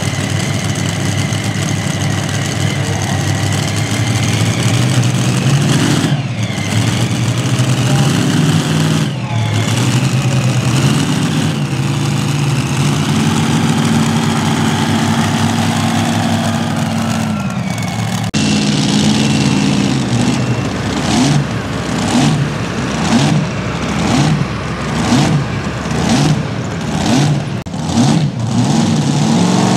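Engine of a pulling truck or tractor running hard under load, its pitch rising and falling, with several abrupt breaks in the sound. In the last third the engine note surges and drops about once a second.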